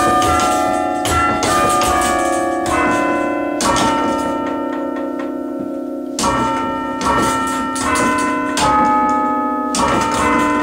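A chime of tower bells rung by hand from a lever chime stand, playing a slow melody one note at a time, each bell ringing on under the next. The strikes fall about half a second to a second apart, with a pause of a couple of seconds midway before the tune picks up again.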